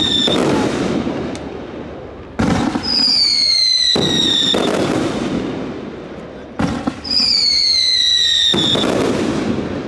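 Fireworks display. Twice, a sharp bang is followed by a high whistle that falls slightly in pitch, then a long spell of dense crackling that slowly fades before the next one.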